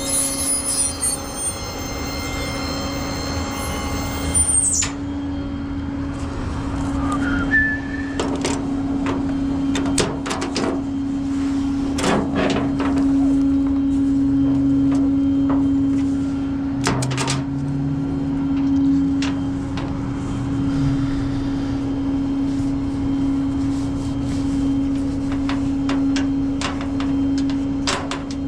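Tow truck running with a steady droning hum, with scattered metal clanks and knocks. A high-pitched whine cuts off suddenly about five seconds in.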